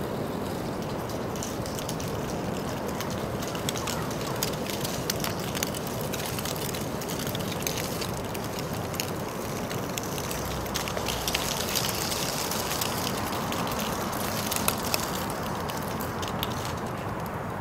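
Outdoor street ambience: a steady low hum with many small, irregular clicks and rattles throughout, and a brief rise in hiss about two-thirds of the way in.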